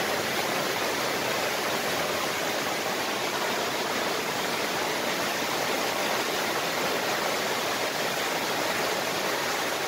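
Muddy floodwater rushing and churning steadily down a walled flood channel in spate after torrential rain.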